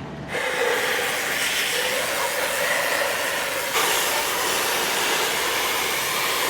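Metal-cutting equipment running with a steady, loud hiss as scrap military hardware is cut up. The hiss brightens suddenly a little past halfway through.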